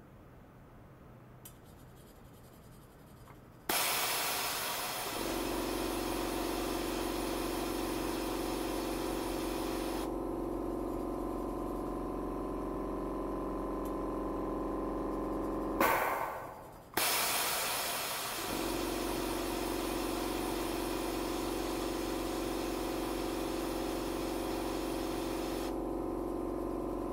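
Stainless steel pipe vibrating under combined sound-and-ultrasonic oscillation: a steady hiss with a low hum and a held tone, switching on suddenly about four seconds in. Around the middle there is a loud burst and a brief dropout before the steady sound comes back.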